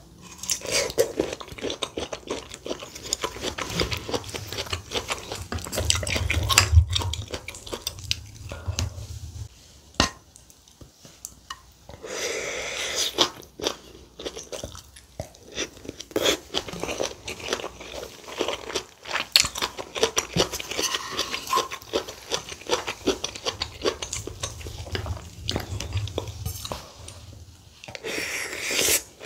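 Close-miked eating sounds: chewing and lip smacking of saury kimchi stew and rice. Longer slurps of broth come about twelve seconds in and again just before the end.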